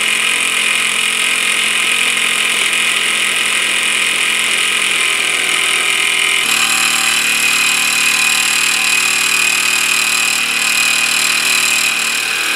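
Mamod ME1 model marine steam engine running fast and unloaded, its propeller spinning in the air: a steady rapid exhaust chatter and hiss from the oscillating cylinder, its tone shifting slightly about halfway through.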